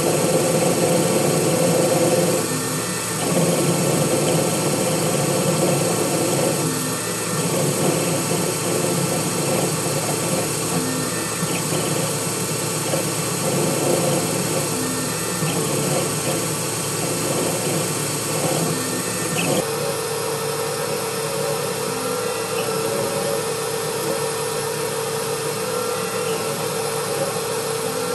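Intelitek Prolight CNC lathe running, its spindle turning and a grooving tool cutting a pull stud, with a steady mechanical whine. About two-thirds through, the sound changes abruptly to a steadier machine hum with one held tone.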